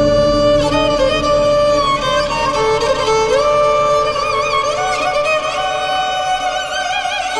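Music: a violin-like bowed melody with vibrato and sliding notes over a sustained drone, in an ethnic lounge/organic house DJ mix.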